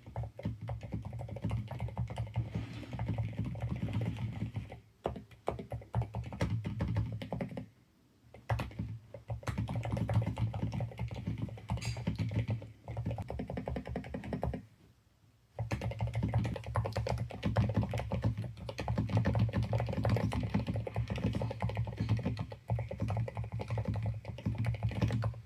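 Typing on a NuPhy Halo96 V2 mechanical keyboard fitted with Silent Red switches: a fast, continuous run of keystrokes that stops briefly three times.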